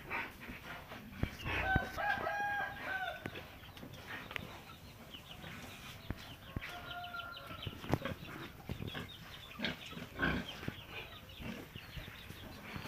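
A rooster crowing twice: a long crow about two seconds in and a shorter one around seven seconds. Scattered knocks and scuffs run underneath.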